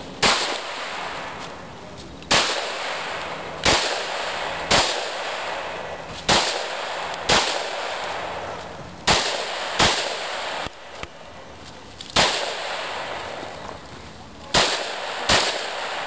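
Pistol shots fired one at a time, about eleven of them, irregularly spaced a second or two apart with some in quick pairs. Each crack is followed by an echo that trails away.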